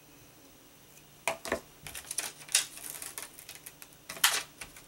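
Clicks, taps and a crinkle of plastic as clear-stamp sheets and an ink pad are handled and moved on a craft desk. It starts after a quiet second, with a burst of small clicks and a louder crinkly rustle near the end.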